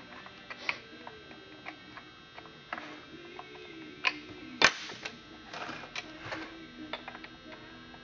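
Scattered small metallic clicks and short scrapes as the chain tensioner screw on a Sachs Dolmar 114 chainsaw is turned and the bar and chain are handled, with one sharper click a little past halfway.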